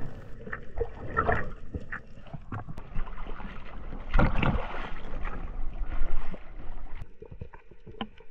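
Water sloshing and splashing around an action camera in the sea, with many scattered clicks. About four seconds in there is a loud noisy surge of water and wind on the microphone.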